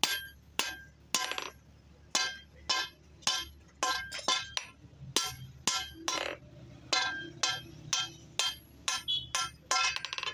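Hand hammer forging red-hot steel on an anvil: about twenty blows, roughly two a second with some quicker double strikes, each with a short metallic ring.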